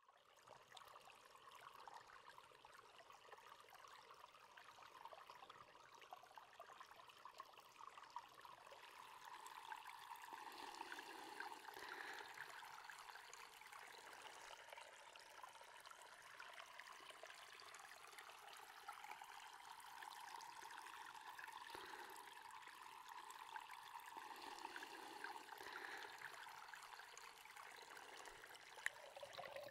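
Faint, steady trickling of running water, with many small ticks and splashes.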